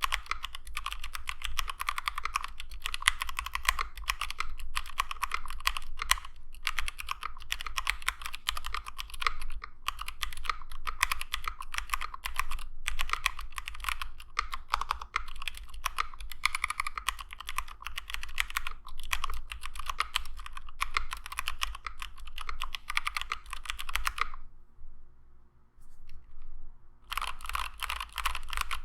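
Fast, continuous typing on a 60% HHKB-layout mechanical keyboard with lubed Domikey x Kailh Cyberpunk Box switches, Durock V2 stabilisers and ABS doubleshot keycaps, a dense stream of key clacks. The typing stops for a couple of seconds near the end, then starts again.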